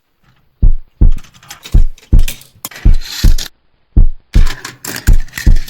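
Intro sound effects: about ten deep thumps, each with a sharp crack on top, coming at uneven spacing.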